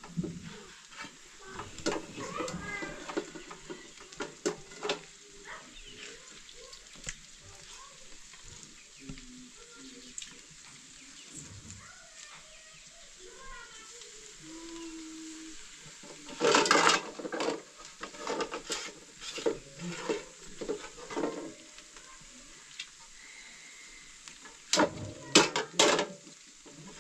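Wood fire crackling under a cooking pot, with scattered knocks, scrapes and splashes from working grain in an aluminium basin of water and stirring the pot. The loudest clatter comes about two-thirds of the way in and again near the end.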